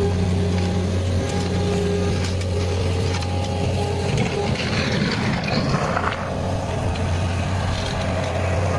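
A steady engine drone from site machinery, with rakes scraping and dragging through a loose gravel base.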